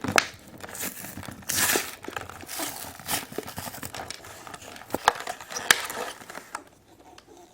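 Crinkling and tearing of plastic wrapping as a toy surprise egg is opened, with irregular crackles and snaps, settling down near the end.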